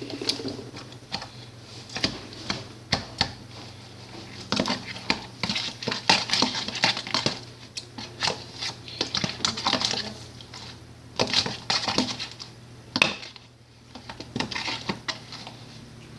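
A spoon clinking and scraping against a bowl while mixing slime from glue and borax water, in many short, irregular knocks and scrapes.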